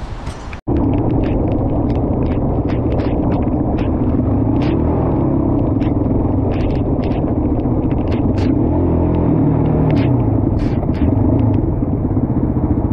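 Yamaha Raptor 700's single-cylinder four-stroke engine running steadily at low revs, with scattered sharp ticks over it.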